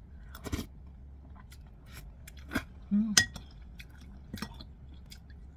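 A metal spoon clinking and scraping against a ceramic soup bowl several times, the loudest clink a little past halfway, with chewing of agar jelly between.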